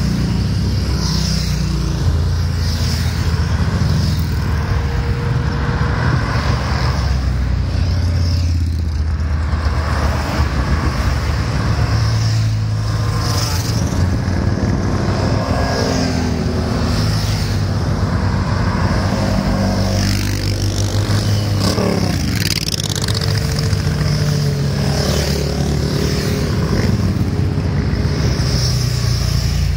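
A steady stream of motorcycles and cars, with a quad bike among them, driving past at road speed. The engine notes rise and fall in pitch as each vehicle goes by, with one clear falling glide a little past two-thirds of the way through.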